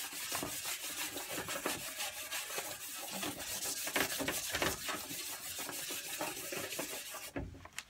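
Chalk pastel rubbed back and forth on paper, a steady scratchy scraping made of many quick strokes. It stops near the end with a low thud.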